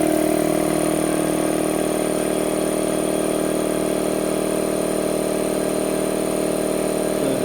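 Harbor Freight Central Pneumatic 2 hp, 29-gallon electric air compressor running steadily just after being switched on, its pump filling the tank.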